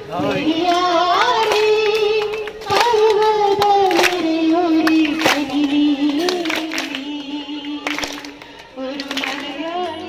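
A woman singing a slow melody into a microphone, holding long notes that slide between pitches and drift lower over the phrase.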